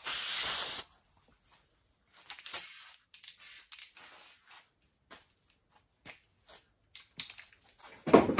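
Aerosol spray can hissing in short bursts onto sheet metal: a long spray of under a second at the start, then several shorter ones, with small clicks between. A louder knock near the end.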